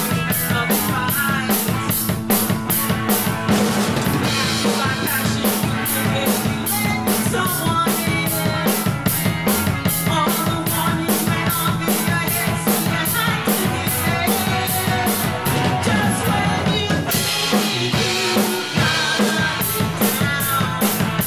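Live band playing a rock song: drum kit keeping a steady beat, with electric guitar and keyboard, and a woman singing lead.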